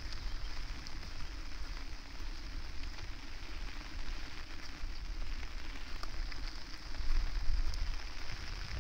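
Steady rain falling, with gusty wind rumbling on the microphone.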